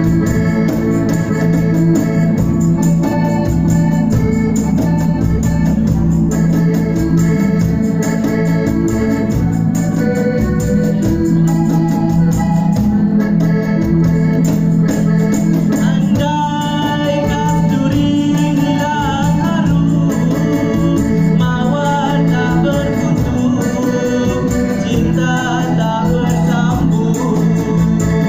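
Live band music carried by a sustained electronic-organ keyboard sound over a steady low note. About halfway through, a wavering, ornamented melody joins in, likely a singer on a microphone.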